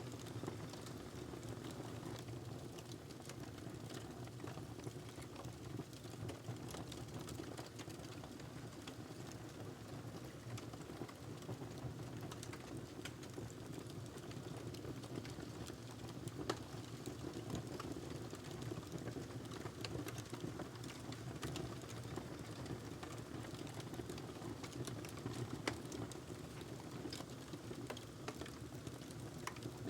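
Wood fire crackling in a fireplace, with irregular sharp pops and snaps over a steady low rushing of the flames.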